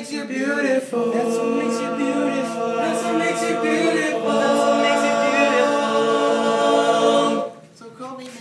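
A cappella vocal group singing, ending on a long held chord of several voices that cuts off about a second before the end.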